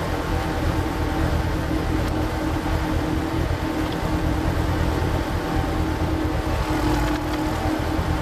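Power tiller's single-cylinder diesel engine running steadily, driving a screw-cone log splitter, heard at double speed.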